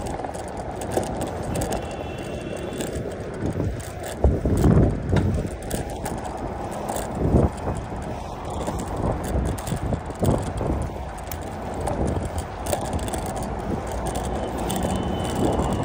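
Bicycle riding along a paved path: steady wind noise on the microphone with tyre rumble underneath. There are louder gusts about four to five seconds in and again at about seven seconds.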